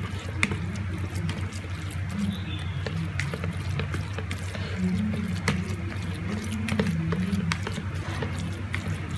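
Silicone spatula mashing tofu in a plastic bowl: scattered soft clicks and scrapes against the plastic, over low background music.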